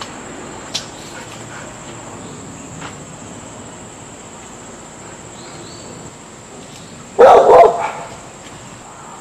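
A dog barking in a short burst of a few barks about seven seconds in, the loudest sound. Under it runs a steady high insect buzz.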